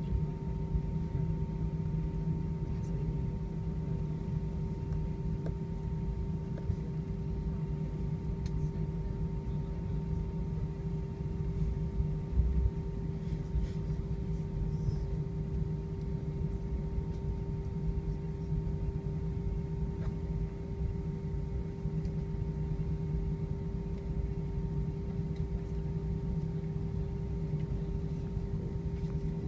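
Inside the cabin of an Airbus A320 taxiing on the ground: a steady low rumble of engines and wheels with a steady hum-like tone over it, and a brief bump about twelve seconds in.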